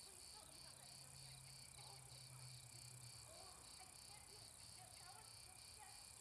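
Faint night ambience of crickets chirping steadily, about three chirps a second.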